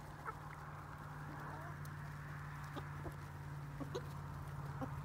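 Chickens clucking now and then, a scatter of short, faint clucks over a steady low hum.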